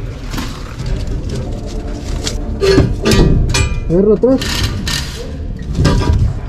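Men's voices talking over a steady low rumble, with scuffs and knocks of movement and handling.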